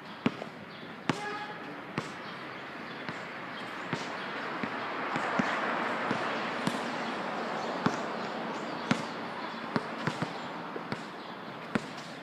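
A basketball bouncing on the court and banking off the backboard as shots are taken and rebounded: sharp, irregular impacts, often about a second apart. Under them, a rushing background noise swells and fades in the middle.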